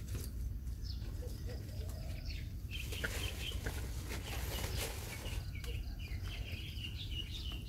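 Rustling of brush and leaves, loudest about three to five seconds in, with birds chirping in short high calls, over a steady low rumble.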